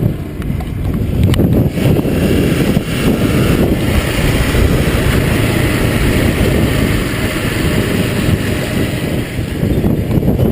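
Heavy wind rumble buffeting the microphone, steady and loud, with a low vehicle-like rumble underneath.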